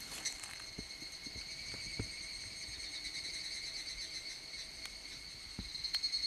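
Steady chorus of insects: a high, fast-pulsing trill with a fainter tone below it, swelling louder near the end. A few soft knocks are heard.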